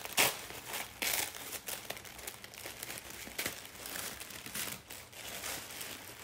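Tissue paper crinkling and rustling as hands work through the wrapping inside a cardboard box, in irregular bursts, the loudest just after the start and about a second in.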